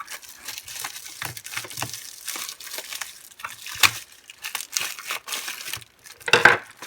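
Thin plastic bubble wrap crinkling and rustling as it is unwrapped from around a CD album, with a sharper crack about four seconds in.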